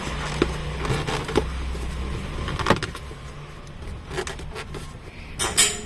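Hands working on the car's gear-lever parts: a few scattered sharp clicks and knocks of plastic, the loudest pair near the end, over a low steady hum.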